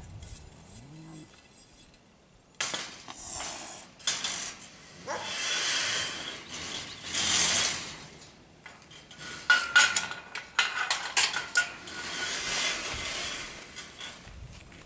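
A serval hissing in several long bursts, mixed with sharp metallic clinking and rattling, loudest about two thirds of the way through.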